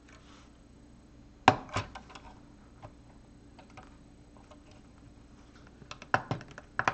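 Hard plastic LEGO pieces pressed and snapped onto a model by hand: two sharp clicks about a second and a half in, scattered light ticks, then a quick run of clicks near the end.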